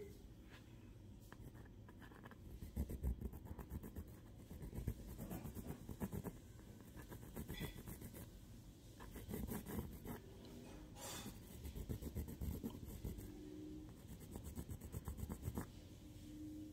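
A reddish-brown pencil scratching across toned paper in repeated bursts of quick sketching strokes.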